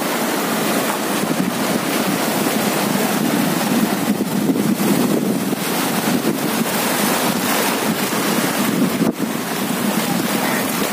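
Sea waves washing on the shore, with wind buffeting the microphone: a steady rushing noise.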